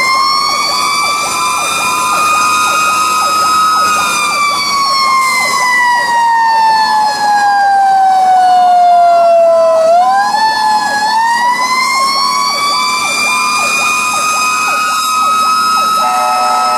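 Fire engine's Federal Q mechanical siren wailing. It holds a high pitch for a few seconds, winds down slowly for about six seconds, then is spun back up and held high again.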